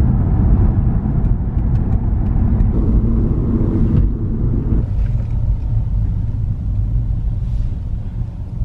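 Car driving on the road: a steady, loud low rumble of engine and road noise heard from inside the cabin.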